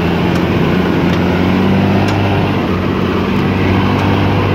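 Mercedes-Benz Unimog truck engine running steadily under load as the truck drives on, heard from its open cargo bed.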